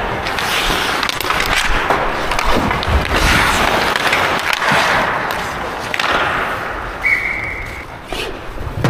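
Ice hockey skate blades carving and scraping on the ice as a player skates hard and plays the puck at the net, with scattered knocks of stick and puck. A short steady high tone sounds about seven seconds in.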